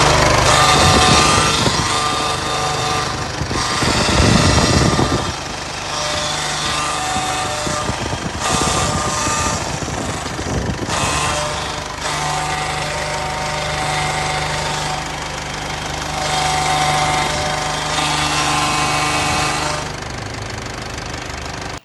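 VW 8-160 truck's power steering making a harsh, loud noise with whining tones over the running engine, swelling several times. The noise persists even with a new steering pump and all the system's fluid replaced.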